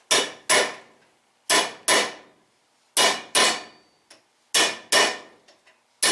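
Hammer striking steel wheel studs to drive them down into the front hub, four pairs of sharp ringing blows about 1.5 s apart. The studs are going in easily.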